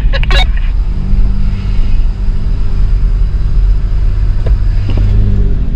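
Jeep engine running steadily with a strong low rumble as it is driven along the trail; its note drops near the end.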